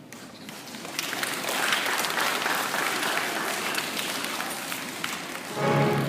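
An audience applauding, a dense patter of many hands clapping that starts softly and builds within the first second. Near the end, music starts up.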